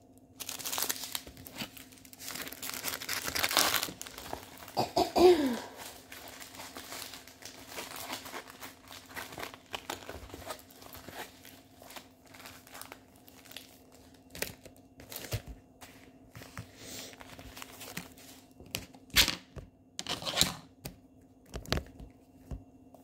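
Clear plastic packaging crinkling and rustling as diamond painting kits, their bagged drills and a rolled canvas in a plastic sleeve, are handled, in irregular bursts that are heaviest in the first four seconds. A brief falling squeak comes about five seconds in, then lighter rustles and clicks.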